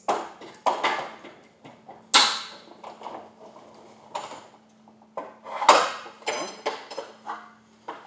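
Irregular sharp metallic clanks and clicks of garage door hardware as the door is lifted back up, the loudest about two seconds in and again near six seconds, over a faint steady hum.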